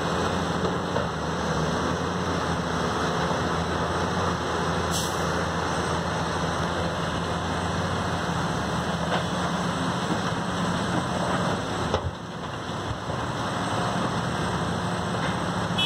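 Diesel engine of a LiuGong 950E 50-ton hydraulic excavator running steadily at working speed while it digs and loads. A single sharp knock comes about twelve seconds in, and the sound dips briefly after it.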